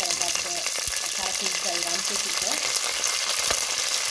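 Curry leaves sizzling in hot oil, a steady crackling hiss as they fry.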